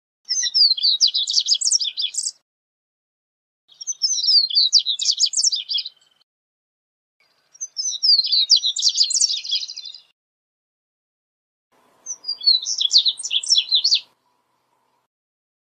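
Male double-collared seedeater (corbatita) singing: four quick, high twittering song phrases of about two seconds each, separated by short pauses.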